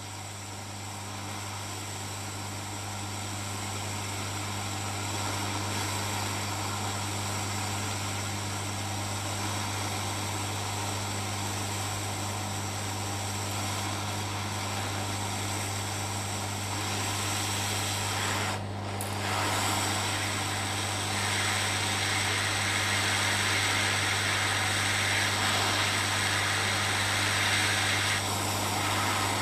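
Hot-air rework station blowing on the board to desolder a surface-mount IC: a steady rushing hiss over a low hum, growing louder as the nozzle is brought in closer, with one brief dip about two thirds of the way through.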